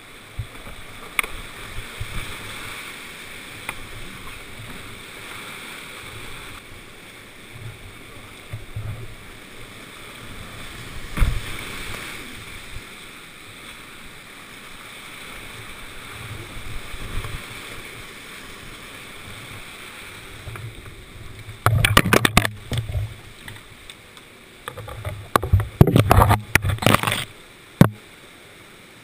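Whitewater creek rushing steadily over boulders, heard from a canoe running the rapids. Loud splashing from paddle strokes and breaking water comes in bursts, once about two-thirds of the way through and again in a longer flurry near the end.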